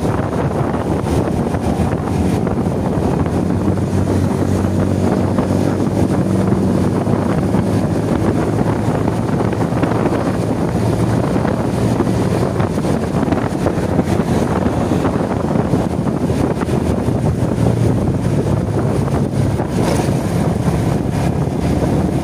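Vehicle engine running steadily on the move, with wind rushing over the microphone.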